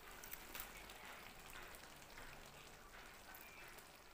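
Faint, irregular popping and crackling of a yam-and-bean stew in palm-oil sauce simmering in a wok on a gas burner.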